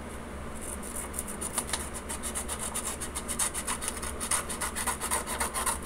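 Scissors cutting a sheet of paper into a long strip: a rapid, even run of short cutting sounds, starting about half a second in.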